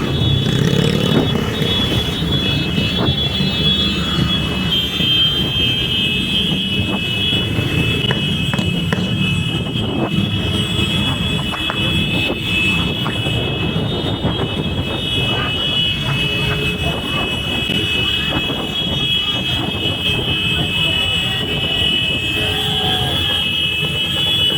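Motorcycle engines running together in a group ride, with frequent short sharp pops over a steady rumble. A steady high-pitched whine runs alongside.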